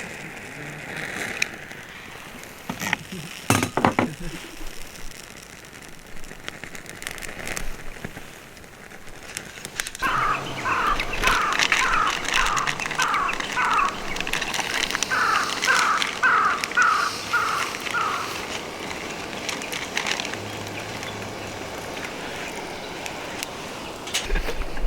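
A songbird repeating a quick series of chirps, about two notes a second, in two runs of six to eight notes. Before that there are a few knocks, and outdoor background noise runs underneath.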